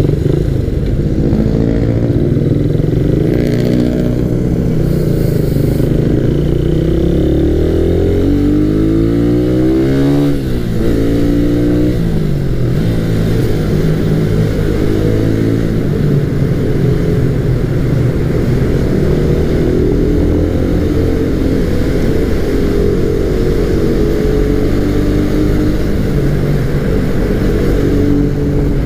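Motorcycle engine running under the rider, its pitch rising and falling as it accelerates through the gears and eases off, with a long climb that drops off suddenly about ten seconds in. Later it runs more steadily inside a road tunnel.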